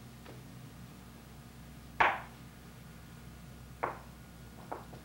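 A small wooden rubbing block knocking and rubbing on paper laid over an inked woodcut block during hand-printing: one sharp knock about two seconds in, then two fainter ones near the end, over a faint steady hum.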